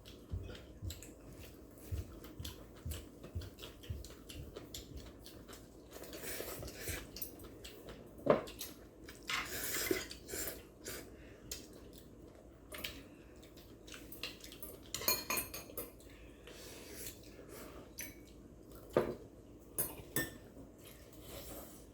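Eating utensils clinking and tapping against bowls and plates at a family meal: many light clicks throughout and a few sharper knocks, the loudest about eight seconds in and again near nineteen seconds.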